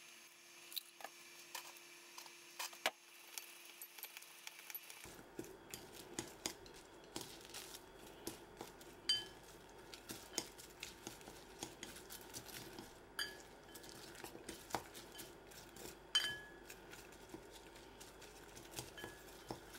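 Chopsticks tossing seasoned sliced green onions in a bowl, with many light clicks and taps of the chopsticks against the bowl and each other. A few taps ring briefly.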